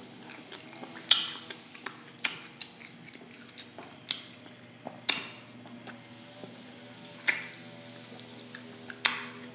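Close-miked mouth sounds of eating glazed pork ribs: about six sharp, wet smacks a second or two apart, with quieter chewing clicks between them.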